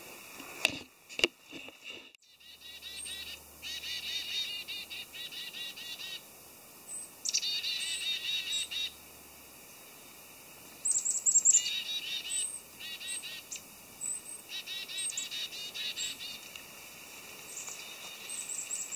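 Small forest birds calling: repeated chirping trills of a second or two, several times over, with thin high chirps between them. Two sharp knocks about a second in.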